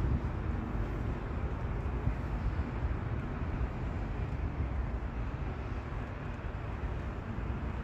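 Outdoor city street ambience: a steady low rumble of traffic.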